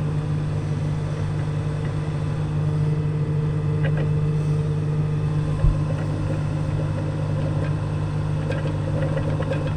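Engine running steadily at an even pitch, with a single dull thump a little past halfway.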